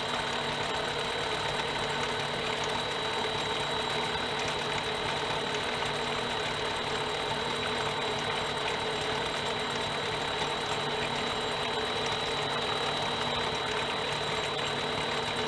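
Harbor Freight mini lathe running steadily at about 490 RPM while its cutting tool takes a deep cut in a steel bar: a constant motor and spindle hum with a steady high whine.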